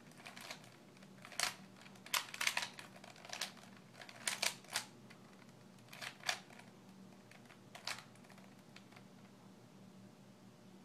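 Rubik's cube layers being turned: a run of sharp plastic clicks, irregularly spaced and some in quick pairs, ending about eight seconds in.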